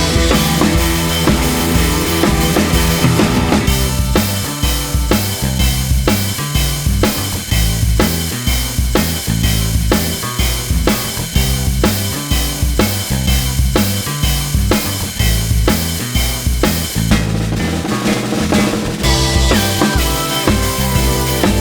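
Background music with a steady drum-kit beat and a stepping bass line.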